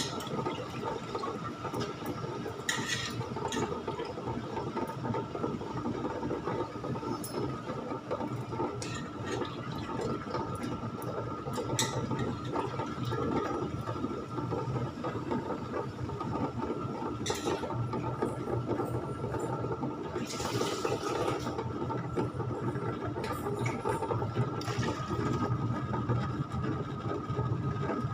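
Ultra Mini tabletop wet grinder running steadily, its stone drum churning soaked rice and urad dal with water into idli batter, with a steady motor hum and a wet sloshing sound. A few short clatters stand out over it.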